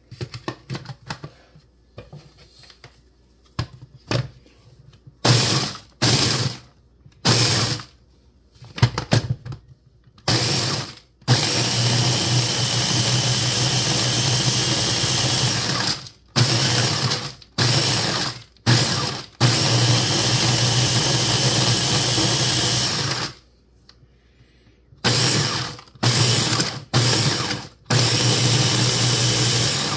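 Electric mini food chopper grinding graham crackers into crumbs. After a few seconds of plastic clicks as the lid and motor top are seated, the motor is pulsed in short bursts, then run steadily for about five seconds and again for about four, with several more quick pulses near the end.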